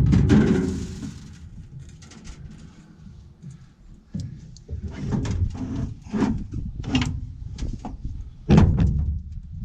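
Irregular clunks and knocks of sheet-metal parts being handled on a combine: a loud bang right at the start, scattered knocks and rattles, and another heavy thump near the end.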